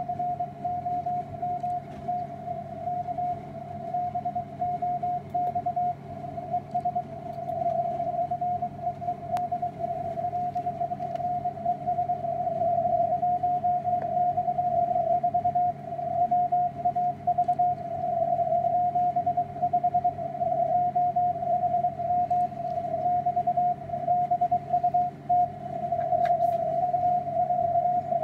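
Morse code (CW) received on the 160-metre amateur band through a software-defined radio: a single tone of about 700 Hz keyed on and off in rapid dots and dashes, over steady band hiss and a low hum.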